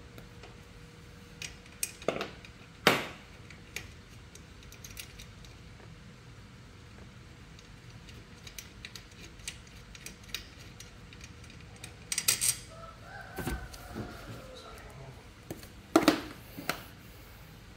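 Scattered metallic clinks and clanks of hand tools and small metal parts being handled, with the loudest knocks about three, twelve and sixteen seconds in.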